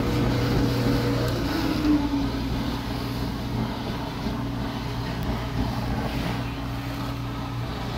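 Build-A-Bear stuffing machine running: its blower motor hums steadily while fibre stuffing tumbles in the drum and is blown through the tube into a plush toy. It is a little louder for the first second or so.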